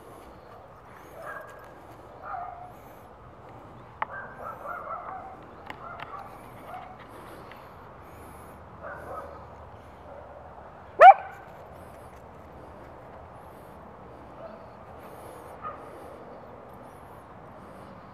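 Canine barking and yipping: scattered short calls, with one loud yelp rising in pitch about eleven seconds in. A sharp click about four seconds in.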